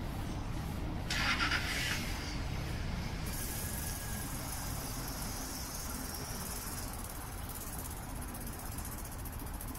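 Steady low rumble of city street traffic heard from a bicycle, with a short hiss about a second in and a thin high hiss setting in a few seconds later.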